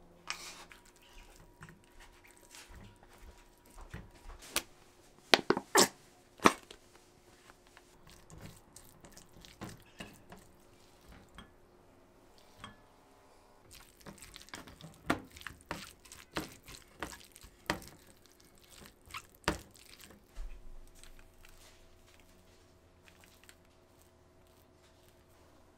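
Kitchen food-preparation handling sounds: sharp clicks and knocks of bowls and utensils, with soft squishing and scraping as salted cucumber is squeezed and stirred into tuna with a spatula in an enamel bowl. The knocks come in two busy clusters, one early and one in the second half, with quieter handling between.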